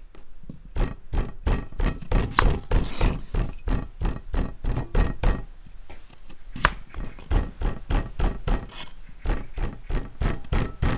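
A wavy crinkle-cut knife slicing through raw potato and knocking on a wooden cutting board. The cuts come in a quick run of about three to four a second, with a couple of short pauses and a few harder strikes.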